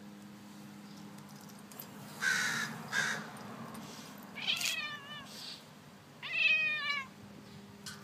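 Two short, harsh crow caws about two and three seconds in, then a cat answering with two drawn-out meows whose pitch slides down, the second the loudest.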